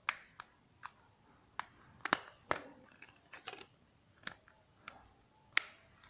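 Plastic back cover of a Micromax X749 keypad phone being pressed firmly onto the body, snapping into place: about a dozen sharp, irregular clicks, the loudest near the end.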